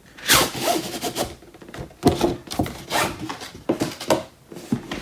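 Cardboard packaging being handled: an inner box sliding and rubbing against its outer box in a series of scraping swishes, the loudest just after the start.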